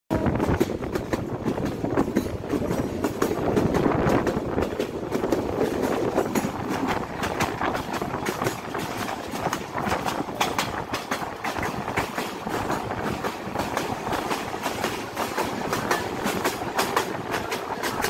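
Bangladeshi intercity passenger train running at speed, heard from an open coach window: a steady rumble of the wheels on the track with frequent irregular clicks and clatter from the rails.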